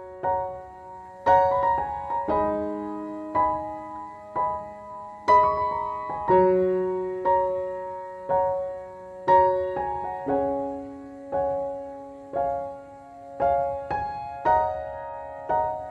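Background piano music: slow, gentle notes and chords struck about once a second, each ringing and fading away.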